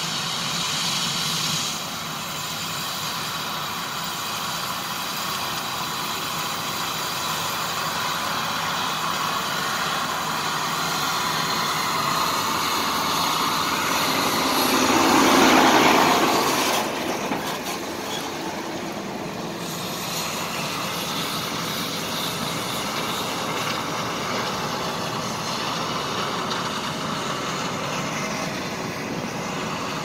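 Steady drone of a John Deere X9 1100 combine harvesting corn, with the tractor pulling the grain cart alongside. About halfway through, a semi truck passes close by, swelling to the loudest point and then fading.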